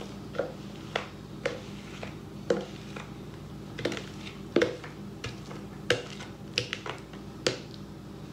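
Metal spoon knocking and scraping against a clear plastic mixing bowl while scooping out crumbly oat topping, a dozen or so irregular sharp taps about once a second.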